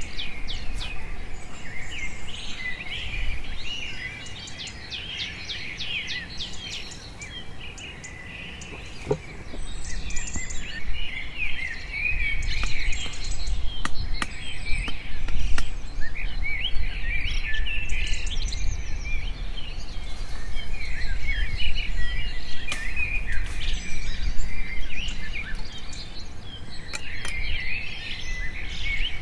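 A chorus of wild birds chirping and calling, many short high chirps overlapping without a break, over a low rumble, with a few sharp clicks in the middle.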